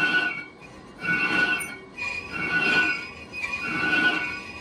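Lathe cutting tool squealing against a cast-iron brake drum as it turns, in repeated high-pitched screeching bursts about every second and a half.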